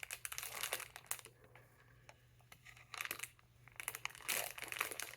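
Plastic packaging crinkling in bouts as the next bootleg Lego minifigure is handled and unwrapped, with a quieter lull in the middle.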